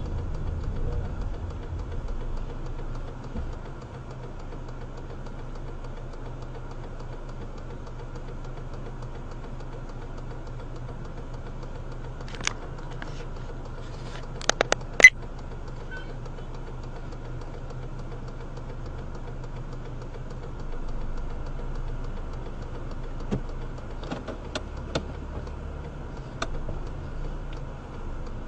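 Car engine idling steadily, heard from inside the cabin, with a low rumble easing off in the first couple of seconds as the car rolls to a stop. A few sharp clicks come in the middle and near the end.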